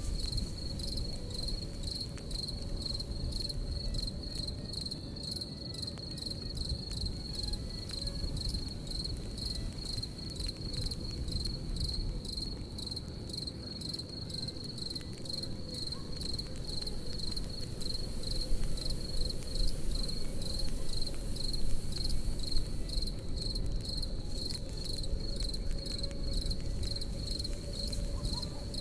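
Crickets chirping in a steady, rapidly pulsing high trill, over a crackling campfire with scattered pops and a low rumble. The fire's crackles and pops grow louder for a few seconds past the middle.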